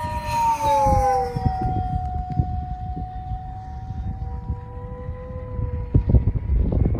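E-flite Rare Bear electric RC plane's motor and propeller whining in flight. The whine carries the low, hum-like whistle that a finger notch cut into its launch grip makes in the airstream. The pitch drops about a second in as the plane passes and then holds steady as it climbs away, fading near the end. Wind buffets the phone's microphone, gusting harder over the last second.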